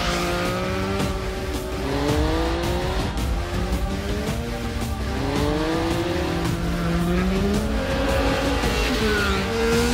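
Triumph Speed Triple RS's 1050 cc three-cylinder engine pulling hard, its pitch climbing in repeated sweeps and dropping back between them, as when accelerating up through the gears. Music plays underneath.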